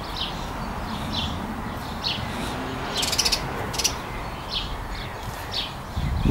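A small bird calling over and over, one short, high, falling chirp about every half second to a second. A brief rattling burst comes about three seconds in, and a shorter one just before four seconds.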